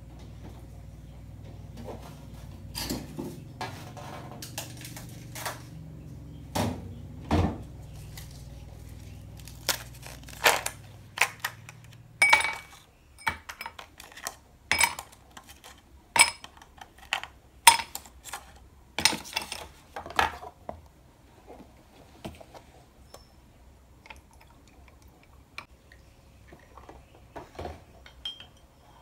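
Kitchenware clanking over a low steady hum, then, after the hum cuts off, ice cubes knocked out of a plastic ice tray and dropped into a drinking glass in a quick run of sharp clinks. Near the end a spoon clinks lightly in a mug while stirring.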